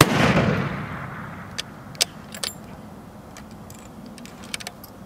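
A single shot from a long-range precision rifle: a sharp crack right at the start, its report rolling away and fading over about a second and a half, followed by several short sharp clicks.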